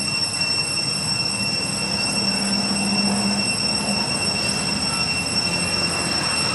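Cicadas droning: a steady, high-pitched whine that holds one pitch without a break.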